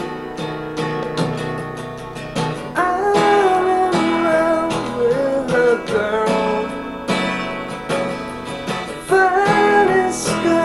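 A song with guitar played through a Plantronics Calisto 620 portable Bluetooth speakerphone.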